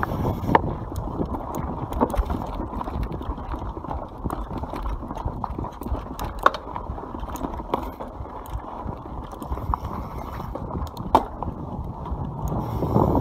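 YT Capra enduro mountain bike rolling fast down a dirt forest trail: steady tyre rumble on the dirt, with scattered clicks, knocks and rattles from the bike over bumps.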